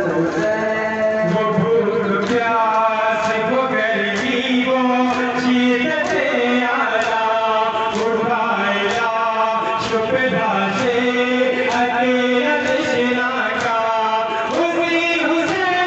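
Male voices chanting a nauha, a Shia lament, in a repeating melody. Over it comes the crowd's matam, hands striking chests in unison about twice a second.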